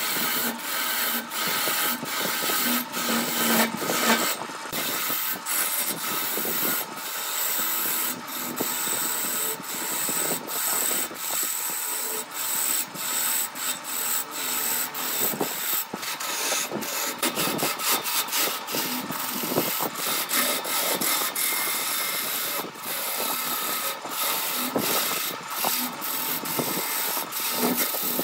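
Turning tool cutting into a glued-up wood blank spinning on a wood lathe: a continuous scraping hiss of shavings tearing off, rising and falling in many short pulses.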